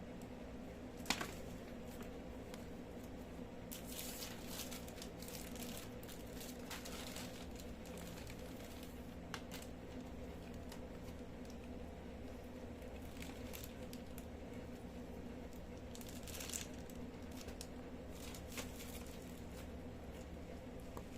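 Plastic packaging crinkling and rustling in irregular bursts as a parcel is unwrapped, with a sharp snap about a second in. A steady low hum runs underneath.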